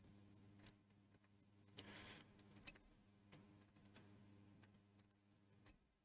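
Faint metallic clicks and a short scrape from a lock pick working the pins inside an Abus padlock's keyway; the pick keeps catching, which points to the lock's security pins.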